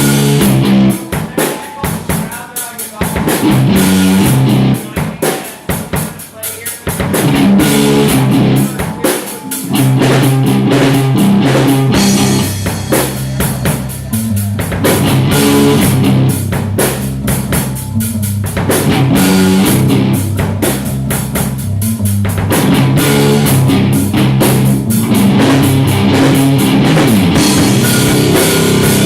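Live rock band playing the instrumental opening of a song on drum kit and guitar: stop-start hits with gaps for the first several seconds, then the full band playing continuously.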